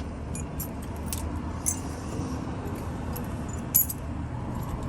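A pile of loose metal keys clinking and jangling as they are handled, with scattered light clinks and two sharper ones, the louder near the end.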